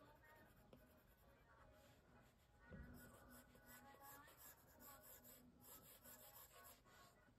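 Very faint scratching and tapping of an Apple Pencil's plastic tip stroking across an iPad's glass screen in short shading strokes, a little louder from about three seconds in.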